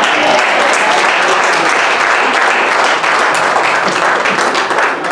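Church congregation applauding, a dense, steady clapping from many hands.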